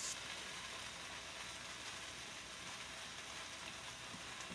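Marinated shaved beef sizzling in an oiled skillet over medium-high heat: a steady, even hiss as the meat browns and caramelizes.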